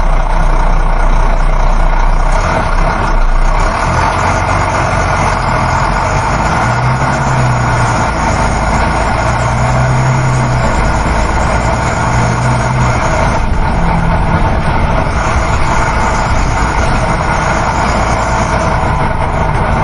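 Coach bus on the move, heard from inside the passenger cabin: a steady engine drone over road and wind noise. The engine note shifts up and down a few times in the middle.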